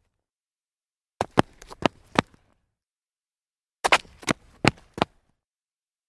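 Sneakers stumbling on concrete: two short bursts of quick, uneven scuffing steps, one starting about a second in and one about four seconds in, each with several sharp hits, separated by dead silence.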